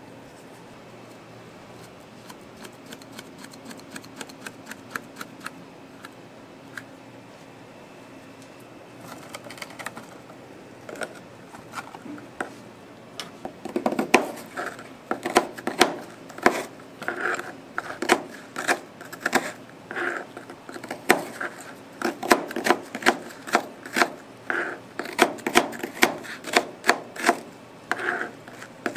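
Chef's knife chopping frozen strawberries on a plastic cutting board: sharp, irregular knocks, a few a second. They start faint and grow loud about halfway through, after a quieter stretch of light handling ticks.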